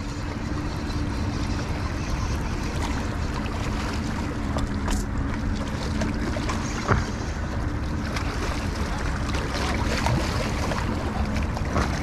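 Wind rumbling on the microphone over a steady low engine drone from boat traffic on the river, with a couple of faint clicks partway through.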